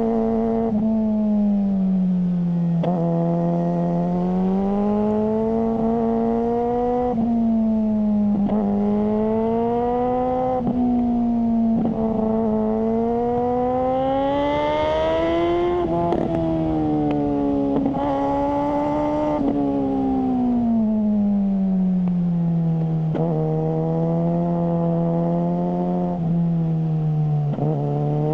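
Suzuki GSR600's inline-four engine through a GPR Ghost aftermarket exhaust, ridden hard: the engine note climbs and falls repeatedly with acceleration and easing off, with short breaks in the note between climbs.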